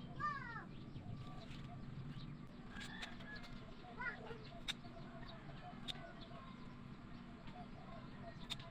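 Birds chirping with a short falling call from a chicken or other fowl at the start and another call about four seconds in, over a steady low hum, with a few sharp clicks.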